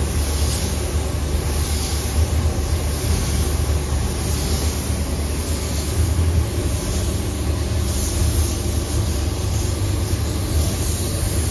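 Compressed-air hiss from a gravity-feed spray gun spraying paint, swelling and fading with each pass of the gun, over a steady low rumble.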